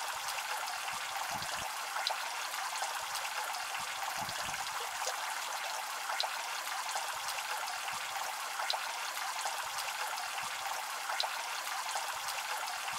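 Heavy rain pouring onto a water surface: a steady hiss with faint ticks of single drops splashing.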